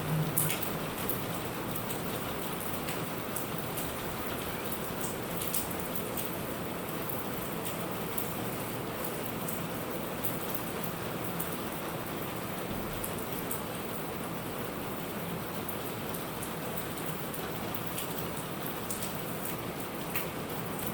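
Steady rain falling, with scattered sharp drop impacts standing out now and then.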